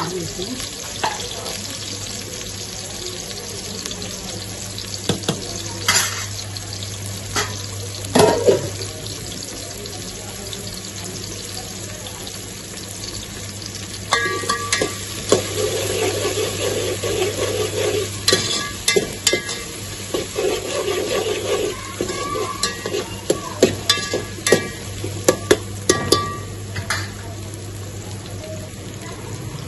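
Sliced onions and whole spices sizzling steadily as they fry in hot oil in a metal pot. From about halfway, a steel ladle stirs them, scraping and clinking against the pot.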